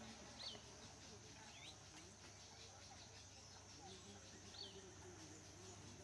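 Quiet outdoor garden ambience: a faint steady high-pitched insect drone, with a few short bird chirps, three of them.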